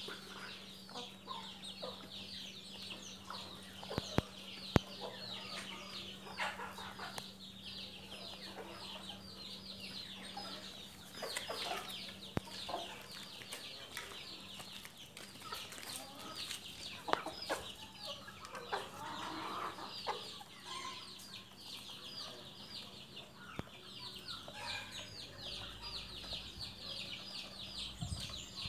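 Hens clucking softly and pecking grain from a wooden trough feeder, with a few sharp clicks of beaks striking the wood. A constant chorus of rapid high-pitched peeps and a steady low hum run underneath.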